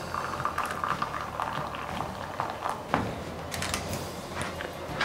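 Just-boiled water pouring from a Tefal electric kettle into a ceramic baking dish around foil-covered ramekins, filling a water bath: a steady splashing stream that tails off after two to three seconds, then a light knock about three seconds in.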